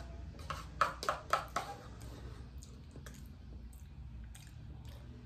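A metal spoon clicking and scraping against a food cup while scooping pasta. There is a quick run of about five sharp clicks about half a second in, then scattered single clicks.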